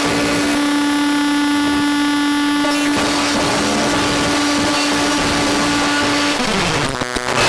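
Circuit-bent Casio MT-240 keyboard, fitted with a tone generator and distortion, putting out a dense distorted noise drone over a steady held tone. A little past six seconds the tone slides down in pitch, and near the end the sound stutters and briefly drops out.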